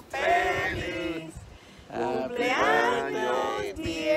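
A small group of adult voices singing together without accompaniment, in two phrases with a short break between them.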